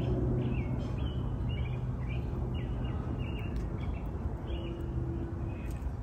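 Small backyard songbirds chirping, a quick string of short high chirps, two or three a second, that stops about five seconds in. A steady low hum and rumble runs underneath.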